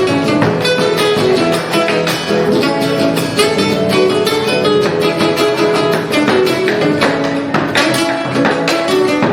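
Instrumental Argentine folk music, a gato, played on acoustic guitars: a lead guitar picks a quick melody over a strummed rhythm guitar, without singing.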